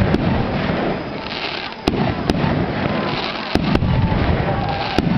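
A fireworks display: about six sharp bangs of bursting shells over a continuous rumble and crackle.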